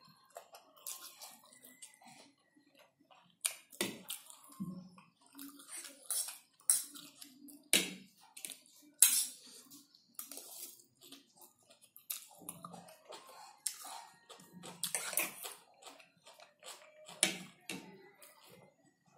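A man slurping and chewing mouthfuls of fried chow noodles close to the microphone: irregular wet smacking and slurping, with a few sharper clicks such as a fork on the plate.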